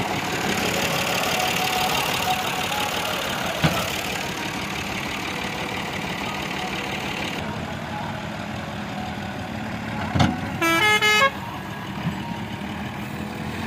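Tractor diesel engine running steadily as it powers the hydraulic tipping trolley unloading soil. A short vehicle horn honk sounds about ten and a half seconds in.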